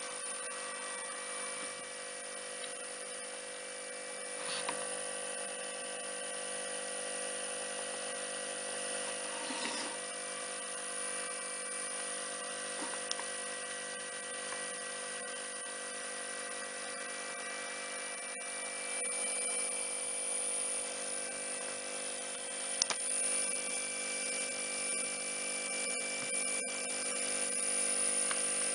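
Airthereal AH1000 ozone generator running with its case open: a steady hum of several held tones over a hiss, with a few light knocks.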